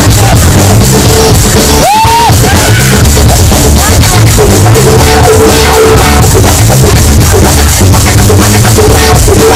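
Loud music with a heavy drum beat, with a brief drop and a rising swoop about two seconds in.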